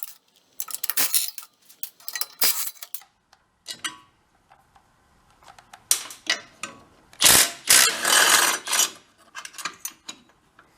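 Metal hand tools clinking and knocking against a snowblower's frame while its belt and engine mounting bolts are worked loose, with a longer run of rapid mechanical clicking about seven seconds in.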